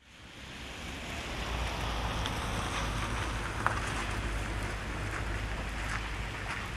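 Wind buffeting the microphone outdoors, a steady low rumble with hiss over it, fading in over the first second; a single sharp click about halfway through.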